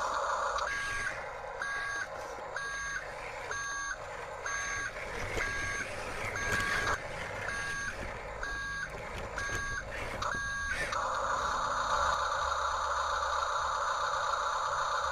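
Reversing-beeper sound effect from a radio-controlled toy construction vehicle, beeping about once a second, ten times, over the whine of its electric motors. The beeping stops near the end and the motor whine carries on.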